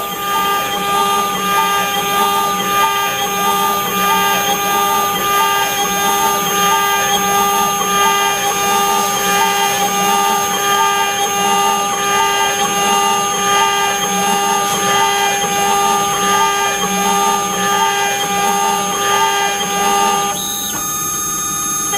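CNC router engraving metal: the spindle runs with a steady high whine while the cutter works with a regular pulsing. Near the end the cutting sound drops away for a moment.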